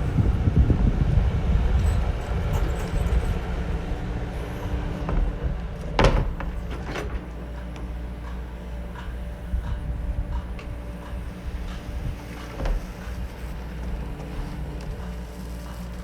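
Steady low rumble of running machinery, with a sharp knock about six seconds in and a few lighter knocks later.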